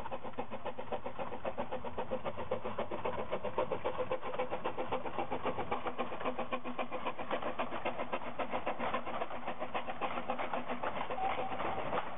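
Narrow-gauge steam locomotive chuffing steadily as it hauls a train past, its exhaust beats coming in a quick, even rhythm.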